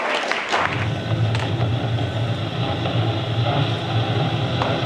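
A few sharp clicks, then a steady low mechanical hum sets in about a second in and runs on evenly, from a device being switched on and operated.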